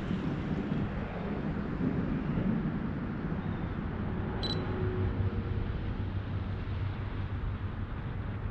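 Steady low outdoor rumble, with one short high electronic beep about four and a half seconds in.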